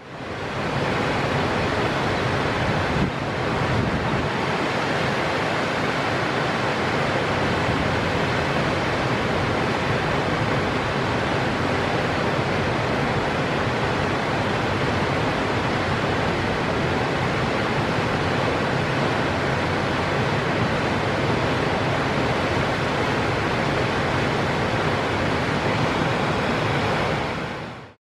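High Force waterfall on the River Tees, a steady rush of falling water that fades in at the start and fades out near the end.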